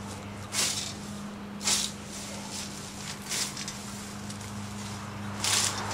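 A long-handled hand tool swishing through grass and undergrowth in several sharp strokes, one every second or two.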